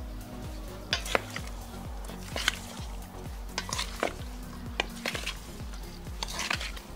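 Wooden spatula stirring and tossing fried bell peppers and onion in a stainless steel bowl: irregular scrapes and knocks against the metal, with background music underneath.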